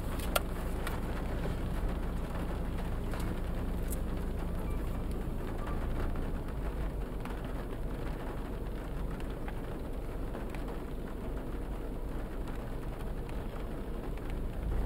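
Steady low rumble of a nearby tornado-producing supercell, mixed with wind and light rain, with a couple of faint clicks.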